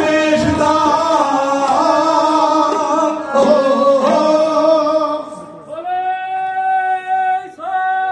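Sikh devotional song: singing with musical backing. From about six seconds in, a single line holds one long steady note, then moves through shorter notes near the end.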